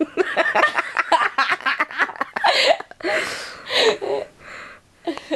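Breathless, hysterical laughter: about two seconds of rapid, wheezy laughing pulses, then several long gasping breaths with short pauses between them.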